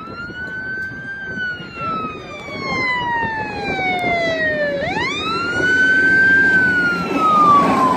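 Emergency vehicle siren in a slow wail: the pitch sweeps up quickly, falls slowly over about four seconds, then sweeps up again about five seconds in and grows louder near the end, over a rushing background noise. Emergency vehicles are responding to an aircraft fire.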